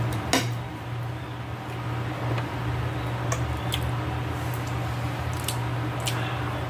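Close-up eating sounds: wet chewing and mouth noises as stewed beef and vegetables are eaten, with a few sharp clicks of a metal fork against the plate, the loudest just after the start. A steady low hum runs underneath.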